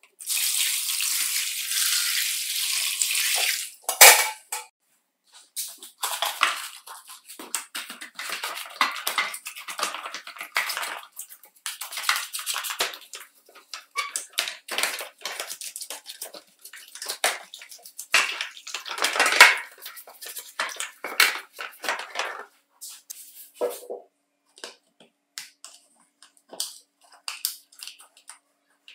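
Water poured steadily from a container into a clear plastic tub of dismantled vacuum-cleaner housings, ending with one sharp knock. Then a brush scrubs the wet, soapy plastic parts in quick irregular strokes, and near the end a few scattered small clicks come as plastic parts are handled.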